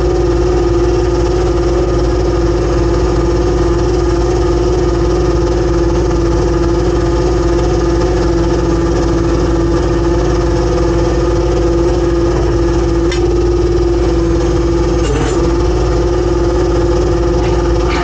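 Fishing boat's engine and deck machinery running at a steady pitch, a constant loud hum that dips briefly near the end.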